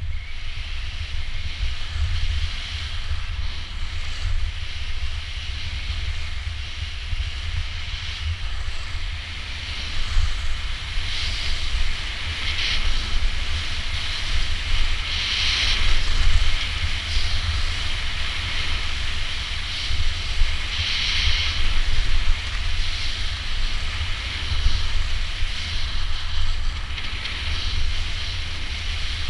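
Wind buffeting the microphone with a steady low rumble, over the hiss of skis sliding and scraping across snow, the scraping swelling several times.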